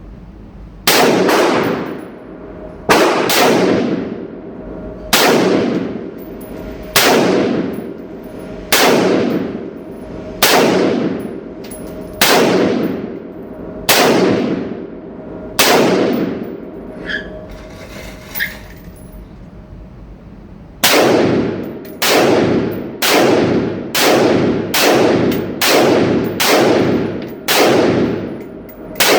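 SIG M400 AR-15 rifle firing single shots, each crack followed by a long echoing ring: about nine shots two seconds apart, a pause with two faint clinks, then about nine quicker shots roughly a second apart.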